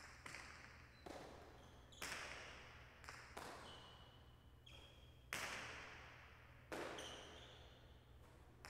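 Jai alai pelota smacking against the fronton walls and floor and into the cestas during a rally: about eight sharp hits at irregular intervals, each ringing out in a long echo in the big court. The loudest hits come about two, five and a half and seven seconds in. A few short high squeaks fall between hits.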